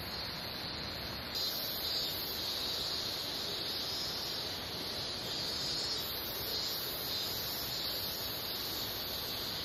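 Cicadas buzzing steadily in the trees, a high continuous drone that swells and pulses slightly, over a steady hiss of background noise.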